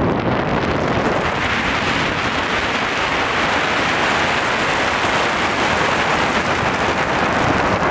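Steady rush of wind buffeting the camera's microphone as it is carried round on a spinning tower swing ride.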